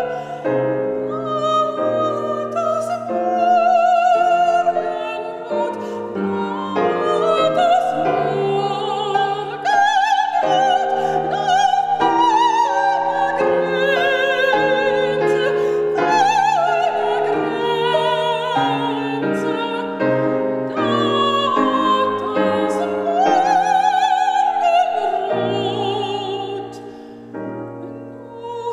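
Soprano singing a German Lied with vibrato, accompanied by grand piano; the music grows quieter near the end.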